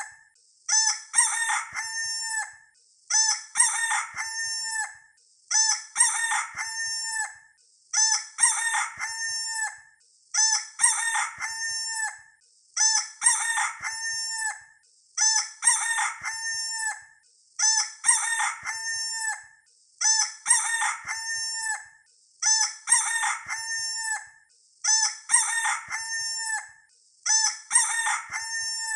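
A rooster crowing again and again, the same crow repeating every two and a half seconds or so, about a dozen times: one recorded crow looped as a sound effect.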